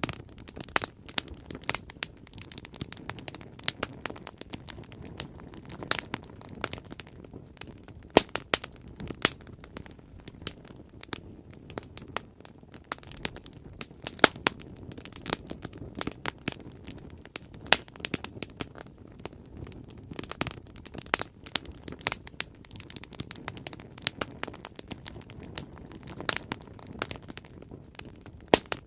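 Bonfire burning: wood crackling and popping at irregular moments, with a low steady rush of flame beneath.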